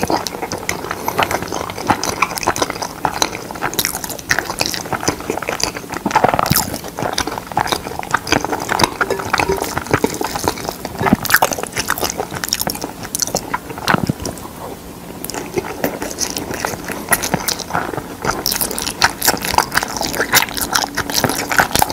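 Close-miked wet chewing and mouth smacks of a mouthful of mixed rice: a dense run of irregular clicks. A spoon stirs through the rice in a glass bowl at times.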